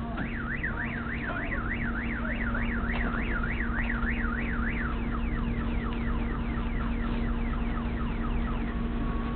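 Car alarm sounding: a fast up-and-down warble for about five seconds, then switching to a run of repeated falling chirps. A steady low hum runs underneath.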